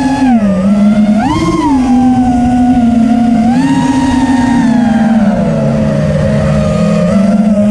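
FPV quadcopter's four Xing 2306 2450kv brushless motors and HQ S4 props whining under changing throttle, heard from the onboard camera with wind rush. The pitch dips, jumps in a short throttle punch about a second and a half in, lifts again near the middle, then sags lower before rising once more near the end.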